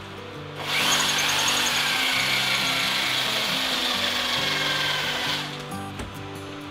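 Handheld drill running for about five seconds, its bit drilling the head off a pop rivet that holds a small bracket to a wooden tabletop. It starts about half a second in and stops near the end.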